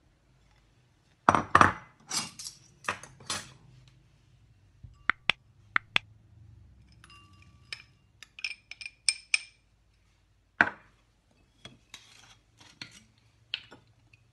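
Small glass bowls knocking and clinking against each other and the counter as they are handled and set down, with chopped nuts tipped from one glass bowl into another in a scatter of small clicks. Two thin, ringing glass clinks come about five to six seconds in.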